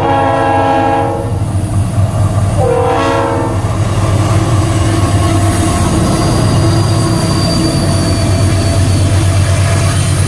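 Diesel locomotive of a Vale passenger train sounding its horn twice, each blast about a second long, then running past close by with a steady low engine and wheel rumble. A faint high wheel squeal comes in about six seconds in.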